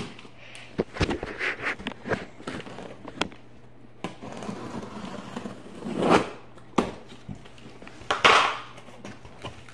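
Large cardboard box being moved and handled on a wooden floor: irregular knocks and clicks, with louder bursts of cardboard scraping and rustling about six and eight seconds in.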